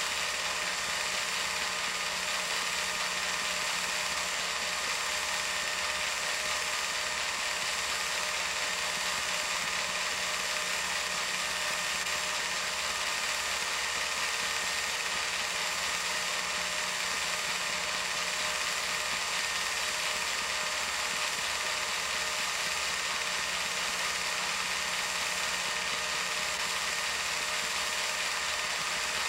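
Film projector running: a steady mechanical whirr with a fast, even clatter over hiss and a faint hum.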